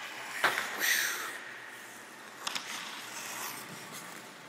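A sharp click, then a brief hissing scrape about a second in, and another click about two and a half seconds in: skates, hockey stick and a folding chair on rink ice.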